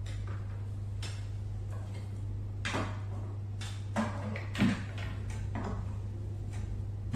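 Knocks and clicks of plastic weather-station parts being handled and set down on a wooden table, the loudest about four and a half seconds in, over a steady low hum.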